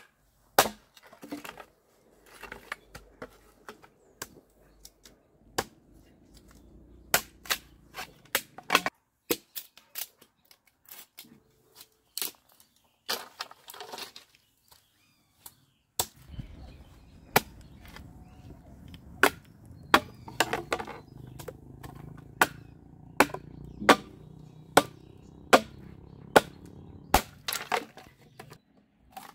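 Machete chopping and splitting bamboo: a long series of sharp cracking strikes, irregular at first and then coming about once a second.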